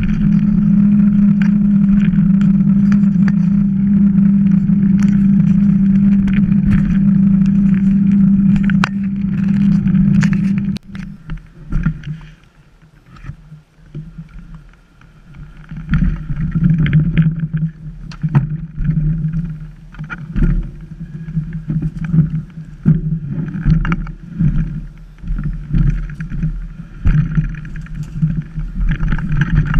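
Mountain bike rolling fast on asphalt, heard on the bike's action camera: a loud steady drone of tyres and wind. About eleven seconds in it drops away as the bike slows. After that comes irregular rumbling, crunching and knocking as the bike rolls slowly over loose rocks and stones.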